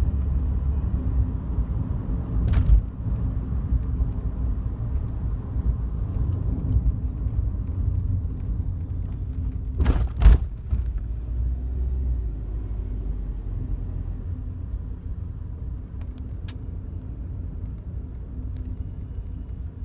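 Cabin of a Daihatsu Wake on the move: steady low road and engine rumble. A few short sharp clicks come through it: one about three seconds in, two close together around ten seconds, and one more near the end. They are plausibly the rattle from the dash in front of the passenger seat that has appeared a month after delivery.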